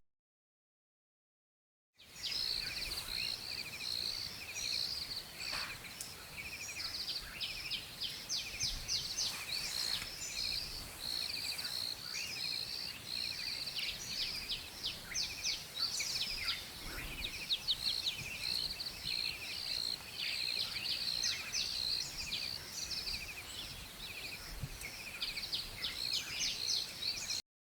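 Many small birds chirping and trilling together in a dense, continuous chorus of quick high notes. It starts suddenly about two seconds in and cuts off abruptly near the end.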